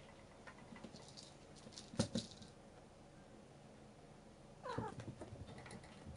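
A domestic cat gives a short meow that falls in pitch, a little before the end. A sharp knock comes about two seconds in.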